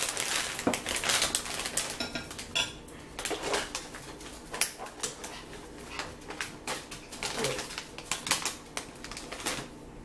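Cutlery and dishes clinking and clattering irregularly while food is handled and eaten, close to the microphone.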